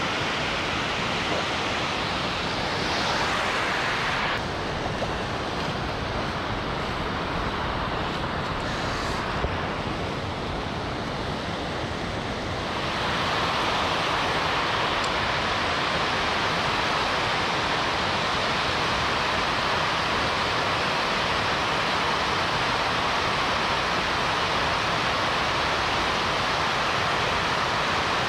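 Water pouring steadily over a low concrete weir, a continuous rushing noise that gets a little louder about halfway through.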